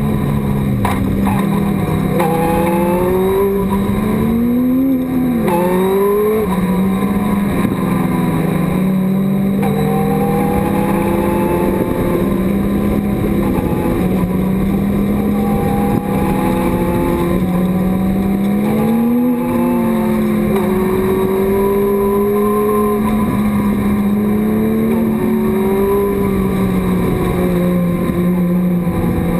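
Thunder Roadster race car's engine heard from inside the open cockpit at racing speed. Its note climbs over several seconds and drops back again and again, over a steady drone.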